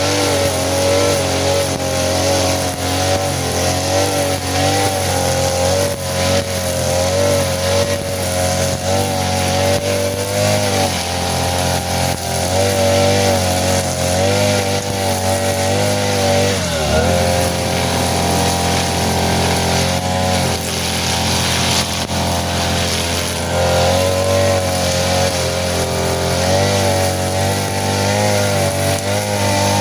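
Small petrol engine of a grass cutter running at high revs, its pitch wavering as the load changes while cutting grass. About halfway through the throttle drops suddenly and the engine runs lower and steadier for a few seconds, then revs back up and resumes cutting.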